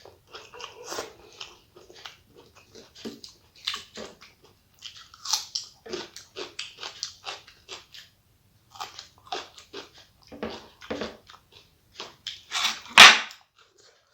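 Close-up eating sounds: a person chewing a rice-and-curry meal, with many short wet clicks and smacks of the mouth. Near the end comes one louder sharp crunch or click.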